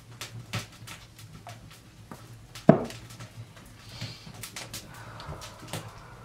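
Wooden spoon beating thick cake batter in a glazed earthenware bowl: irregular knocks and clicks of the spoon against the bowl, with one loud knock a little under halfway through.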